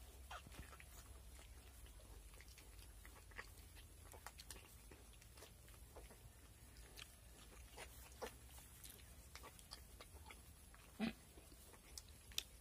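Near silence with faint scattered rustles and clicks from newborn piglets moving in straw as they suckle, and one short pig grunt near the end.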